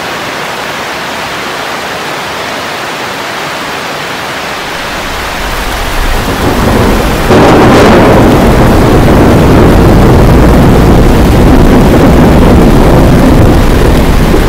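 Steady heavy rain, then thunder: a rumble builds about five seconds in, breaks into a loud clap about halfway through, and rolls on as a long low rumble under the rain.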